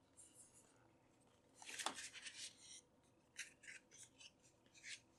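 Paper and cardboard rubbing and scraping as a softcover project book is slid out of a snug cardboard box: a run of faint, short scratchy rustles, the loudest about two seconds in.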